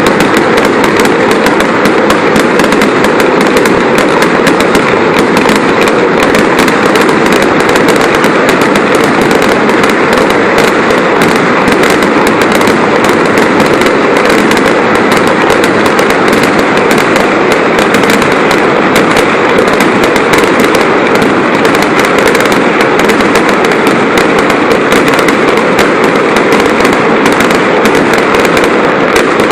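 Fireworks crackling in a dense, unbroken stream of rapid pops, very loud and steady throughout with no pauses.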